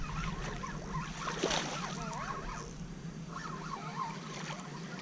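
Hooked largemouth bass splashing at the pond's surface as it is reeled in to the bank. The splashing is faint under steady wind noise on the microphone, with one sharper splash about one and a half seconds in.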